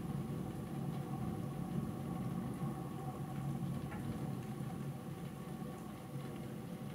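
Distant thunder rumbling low and steadily, slowly fading over the last few seconds, over a faint steady hum.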